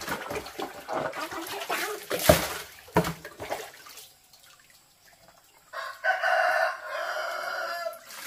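Water scooped with a plastic dipper and poured and splashed into a plastic basin, with a sharp splash a little over two seconds in. Then a rooster crows once, a single held call of about two and a half seconds near the end.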